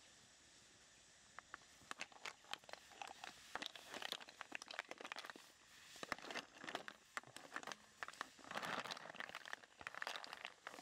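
Snail shells clicking and rattling against each other and the woven basket as they are tipped into a wok of broth, with splashes.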